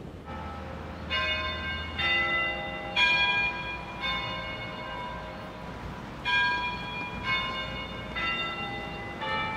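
Church bells ringing, struck about once a second at changing pitches, each strike ringing on into the next, with a short break about halfway through.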